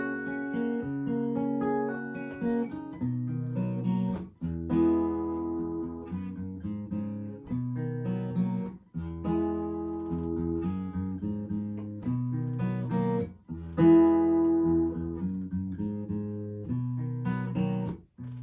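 Acoustic guitar playing the song's closing instrumental: strummed and picked chords in a repeating pattern, with a short break about every four and a half seconds.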